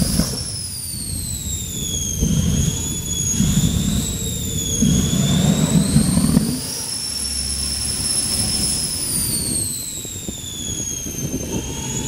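Boeing 502 gas-turbine engine of a T-bucket hot rod, its high whine rising and falling again and again as the throttle is worked. Between these come several bursts of low rumble as flames are shot from the exhaust for a fire show.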